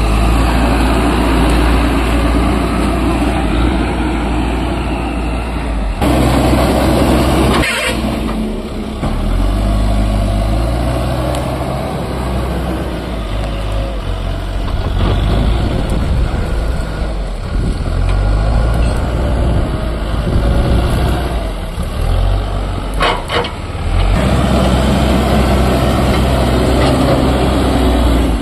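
Heavy diesel vehicle engine running loudly, its note shifting up and down as it works, with a few short sharp sounds over it.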